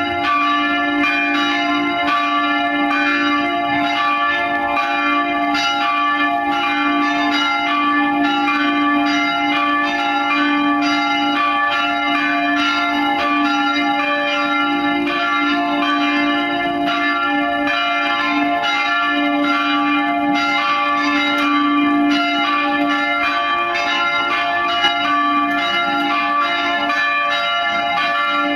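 Three Van Bergen church bells from Heiligerlee swinging together in full peal, rung as the call to mass: strokes overlap continuously over a steady low hum.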